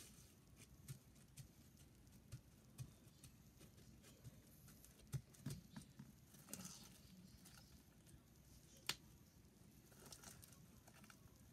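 Near silence with faint, scattered soft clicks and rustles from hands handling slime and foam beads. The sharpest click comes about nine seconds in.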